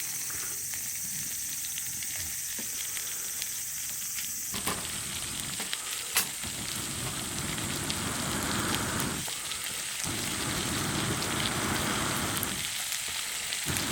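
Food sizzling in a pan over a camp fire. A faint steady hiss is followed, about a third of the way in, by a sudden louder frying sizzle that dips briefly twice.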